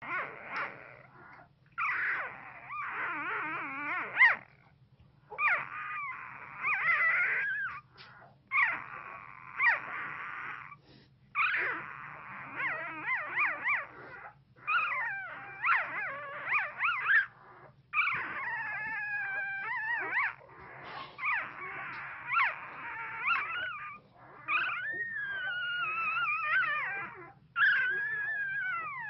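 One-week-old pit bull puppy whimpering and making small howling cries in its sleep while dreaming: bouts of high, wavering squeaky cries a second or two long with short pauses between them, some gliding up and down in pitch.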